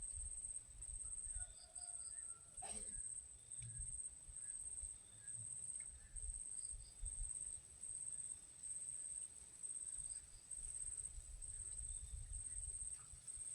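Insect singing outdoors: a high, thin buzz that pulses on and off about three times every two seconds, over a low rumble.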